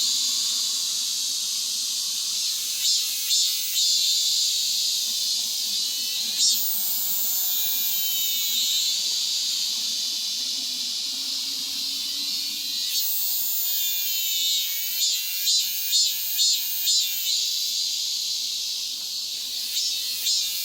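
Cicadas singing loudly: a high, shrill buzz that holds steady for long stretches and in other stretches beats in rhythmic pulses about two a second.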